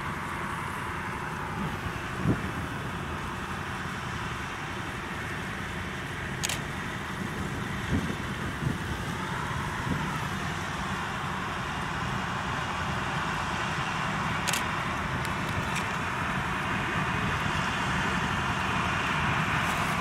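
Claas Lexion 770 combine harvester threshing corn, running steadily together with the Claas tractor hauling the grain trailer beside it, a dense machinery drone that grows gradually louder as they approach. A few faint sharp clicks sound over it.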